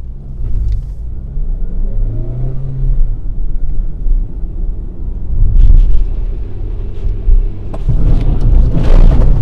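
Toyota Corolla engine heard from inside the cabin, rising in pitch as the car accelerates, over steady road rumble. About eight seconds in, a loud rush of water spray hits the car's body and windows.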